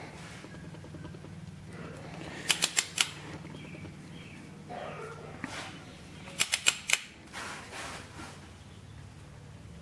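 Sharp metallic clicks from a valve spring compressor working a valve spring on a 5.9 Cummins cylinder head. They come in two quick clusters of about four clicks each, a few seconds apart, over a low steady hum.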